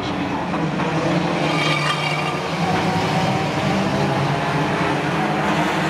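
A pack of junior banger race cars racing together, many engines running at once in a steady, continuous drone.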